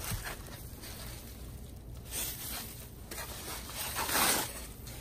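Foam packing sleeve and bubble wrap rustling and scraping as wrapped parts are slid out of it, in short bursts, with a louder, longer scrape about four seconds in.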